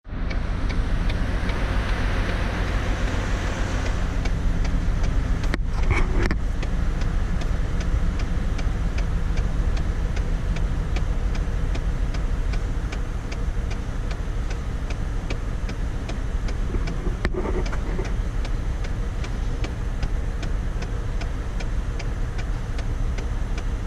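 A 2004 Chevrolet Trailblazer's 4.2-litre Vortec inline-six idling steadily, with a light regular ticking running through it; the engine has a misfire.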